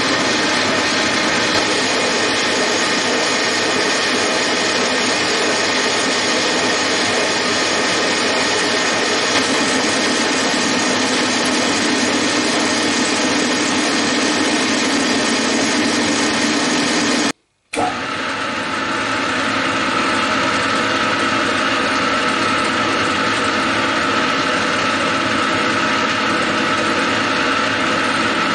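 Metal lathe running steadily, an insert tool taking a cut on a spinning round bar. About two thirds of the way through there is a brief break, after which the machine noise carries on with a steady whine.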